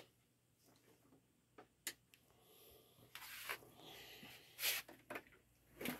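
A few faint, scattered clicks and soft rustling, starting after a second and a half of near silence, with one slightly louder click near the end.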